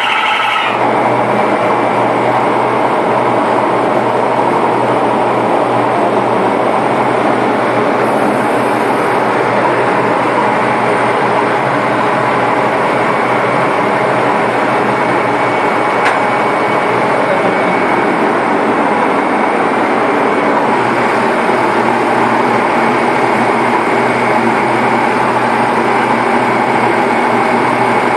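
Hammelmann high-pressure water jetting pump running loudly and steadily under load, with a dense mechanical noise. The owner calls this noise abnormal: it appears while the high-pressure gun is operated, whereas the pump runs quietly in normal condition.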